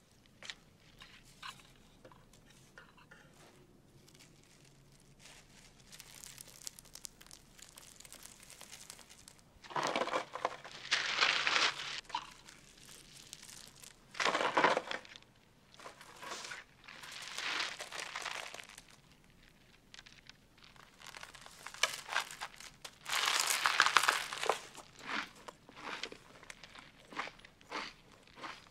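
Plastic bag of cereal and paper lunch bag crinkling and rustling as they are opened and handled. The sound comes in several loud bouts of a second or two, with quieter stretches of faint handling between them.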